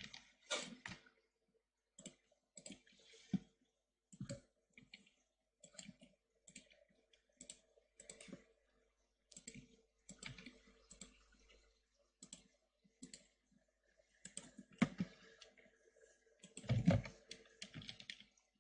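Computer mouse clicks and keyboard key presses at an irregular pace, with a quick run of typing near the end. A faint steady hum runs underneath.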